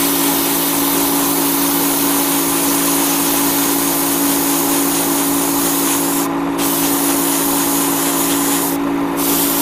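Iwata Neo airbrush spraying green paint onto a small plastic model part: a steady hiss of air and paint that cuts out briefly twice near the end as the trigger is let off, with a steady low motor hum underneath.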